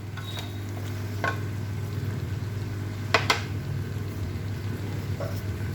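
Vegetables frying in spice paste in a kadai, sizzling as they are stirred, with a metal spoon clinking against the pan a few times, loudest about three seconds in. A steady low hum runs underneath.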